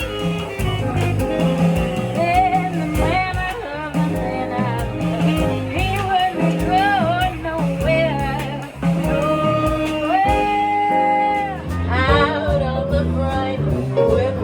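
A live band playing with a lead singer, drums keeping time under a sung melody. About ten seconds in, the singer holds one long note before the line drops away.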